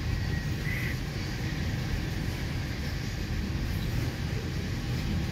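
A freight train of loaded ethanol tank cars rolling past, with a steady rumble of steel wheels on rail.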